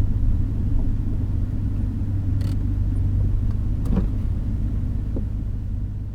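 Nissan Skyline GT-R (BNR32) with its RB26DETT twin-turbo straight-six cruising: a steady low engine and road rumble with a couple of faint clicks, fading out near the end.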